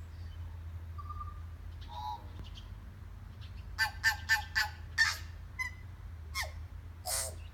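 Tui song, traded between two birds: a few faint notes in the first two seconds, then a loud run of about five short notes roughly four seconds in, and scattered single notes after, one of them falling in pitch. A steady low rumble runs underneath.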